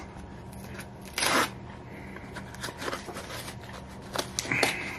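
Wrapper of a mini apple pie being torn open and crinkled by hand: a loud tear about a second in, scattered crinkles and clicks, and another shorter tear near the end.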